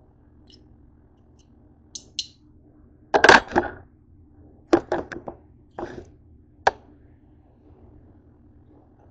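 Knife chopping cooked chicken breast on a cutting board: a scatter of sharp knocks, the loudest cluster about three seconds in, then several more spread over the next few seconds. A low steady hum runs underneath.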